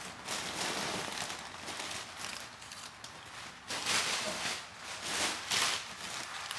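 Packing paper rustling and crinkling as it is pulled out of a shipping box, with louder handfuls of crumpling about four and five to six seconds in.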